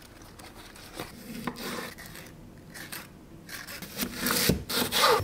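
Kitchen knife slicing through a peeled onion on a wooden cutting board, with louder rasping strokes near the end; earlier, softer rustles of lettuce leaves being laid on bread.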